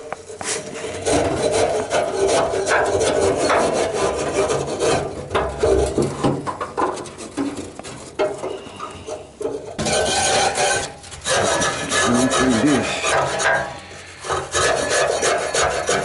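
Wire brush scraping back and forth in the narrow slots of a Hallmark furnace, clearing out clogged debris. The strokes are rapid and rasping, with brief pauses about nine and fourteen seconds in.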